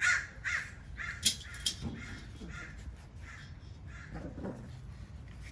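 A series of short, high animal calls, about two a second, growing fainter and dying out a few seconds in, with two sharp clicks a little after a second in.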